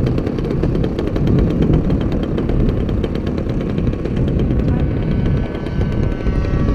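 Small gasoline model-airplane engine running hard, a loud, rapid rattling drone of firing pulses.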